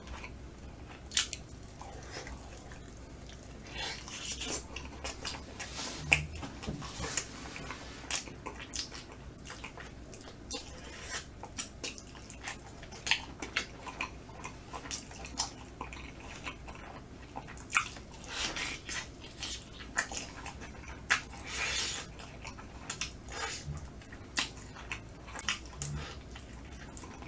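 Close-miked biting and chewing of a smoked chicken leg: many short, irregular clicks and crackles of mouth and tearing meat.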